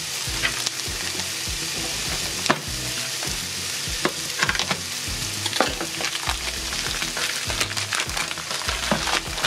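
Sausages sizzling in a cast-iron skillet, a steady frying hiss, with scattered sharp clicks and rustles as a plastic pack of bacon is cut open with a knife and handled.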